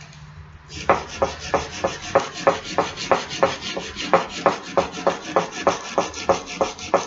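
Wet sandpaper rubbed by hand back and forth over a rusty steel axe head to scour off the rust, at an even pace of about three strokes a second, starting about a second in.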